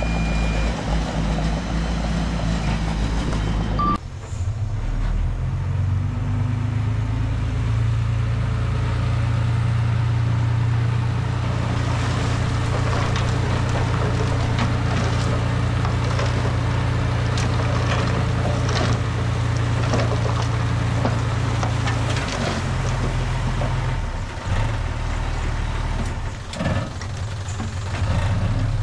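Heavy diesel engine of earthmoving machinery running steadily under load. The engine note changes abruptly about four seconds in, and there is some scattered clatter later on.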